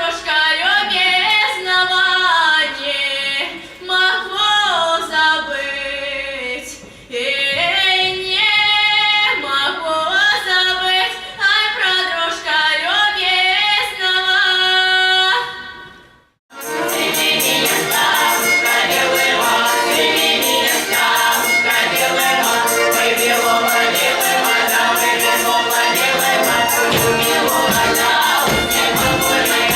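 A solo voice singing a melody for about the first half. It breaks off in a sudden cut, then a choir sings with full instrumental accompaniment and a steady beat.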